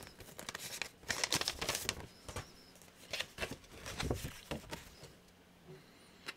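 A folded paper note being handled and opened: irregular rustling and crinkling of paper, thickest in the first couple of seconds and thinning out about five seconds in.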